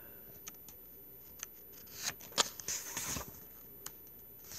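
Pages of a hardcover graphic novel being handled and turned: a few faint clicks, then a short paper rustle with sharp ticks about two to three seconds in.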